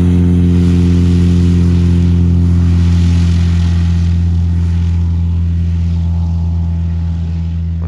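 A Stemme self-launching motorglider's engine and propeller running at takeoff power on its ground roll, a steady drone that slowly fades as it moves away down the runway.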